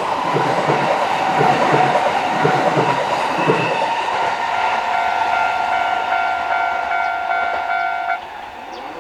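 An electric train runs past, its wheels clacking rhythmically over the rail joints for the first three or four seconds. As it clears, the level crossing's warning bell is heard ringing in a steady, repeating tone, which cuts off suddenly about eight seconds in as the crossing stops sounding.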